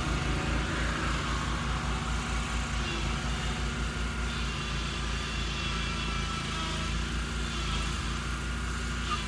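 Lawnmower engine running at a steady drone.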